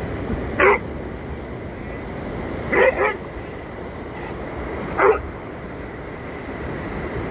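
A dog barking: one bark about a second in, a quick double bark about three seconds in, and another single bark about five seconds in.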